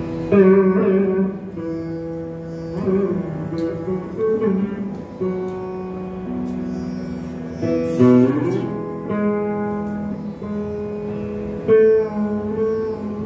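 Saraswati veena playing slow phrases in raga Kapi: a few strong plucks, with the notes held and bent into sliding gamakas between them.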